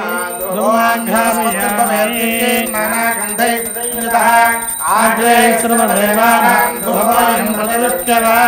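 Male voices chanting Vedic Sanskrit mantras in a continuous recitation, syllables rising and falling around a steady reciting pitch.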